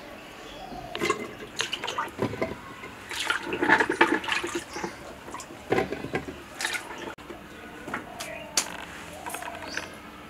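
Washed potatoes dropped by hand, a few at a time, into water in a pressure cooker: a string of irregular splashes and knocks.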